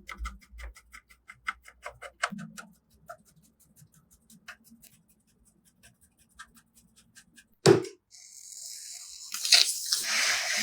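Light clicks and ticks of PC hardware being handled and fitted, irregular and rapid, with a faint low hum through the middle. A single loud knock comes about three quarters through, followed by a hiss that swells toward the end.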